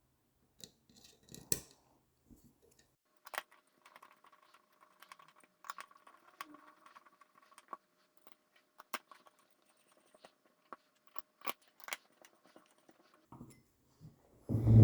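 Small screws and a hex driver clicking and tapping on a carbon-fibre quadcopter frame as the top plate is screwed down, in scattered light ticks, with one louder thump near the end.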